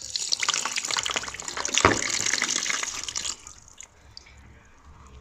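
Drained radiator water being poured out of a bucket, a splashing pour lasting about three seconds that then stops, with a knock about two seconds in.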